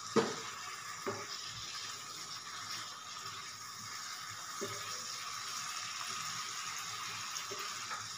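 Egg curry gravy sizzling in a pan while a metal spatula stirs it, knocking against the pan: one sharp knock just after the start, then a few softer taps.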